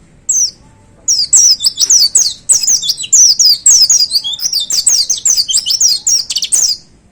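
White-eye (pleci) singing: one short high note, then, from about a second in, a fast unbroken run of high, down-slurred notes lasting nearly six seconds.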